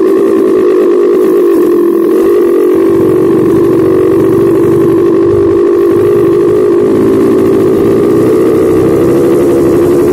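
Dirt bike engine running steadily under way, heard from the rider's seat, its pitch holding with slight wavers.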